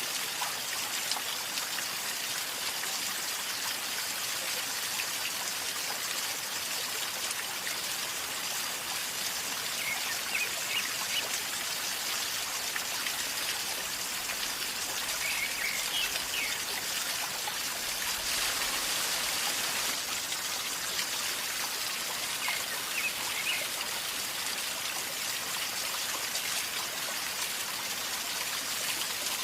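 River water flowing and gurgling steadily, with a few faint short high chirps over it now and then.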